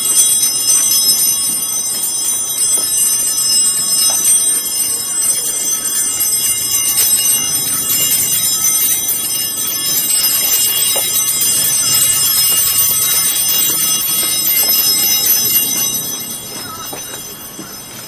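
Church bells ringing in a continuous peal, many overlapping tones, fading down near the end.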